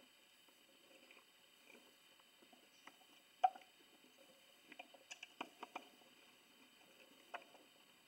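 Quiet handling noises from a drill and small screws being picked up and set in place: scattered light clicks and taps, the sharpest about three and a half seconds in and a small cluster a second or two later. The drill motor is not running.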